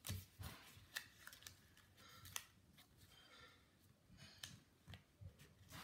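A sheet of paper being folded and creased by hand: faint rustling and crinkling, with a few soft clicks and taps as the folds are pressed flat.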